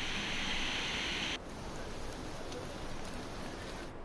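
Steady rush of a muddy monsoon waterfall pouring down a rock face, bright and hissing. About a second and a half in it cuts off abruptly to a quieter, even hiss of falling rain.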